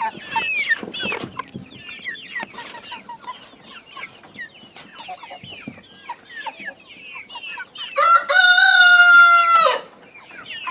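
A flock of improved Kienyeji chickens clucking and cheeping in many short calls, and near the end a rooster crows once, a long, loud crow held level for nearly two seconds before it drops away.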